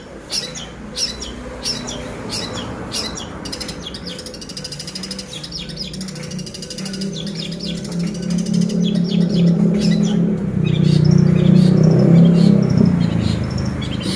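Small birds chirping rapidly in quick, high, repeated notes. A low droning sound builds in the second half and becomes the loudest thing near the end.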